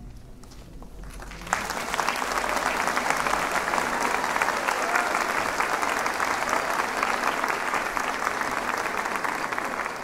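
Audience applauding at the end of a choral song, breaking out suddenly about a second and a half in and then holding steady.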